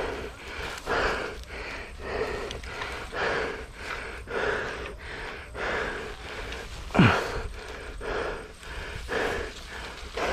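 A man breathing hard and rhythmically, about one breath a second, with the effort of poking at branches overhead with a long bamboo pole; a short falling grunt about seven seconds in is the loudest sound.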